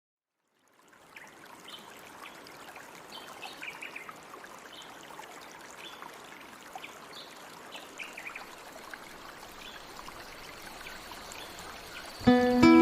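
Waterfall water rushing steadily, fading in after a moment of silence, with small birds chirping on and off. Near the end, plucked acoustic guitar notes come in loudly.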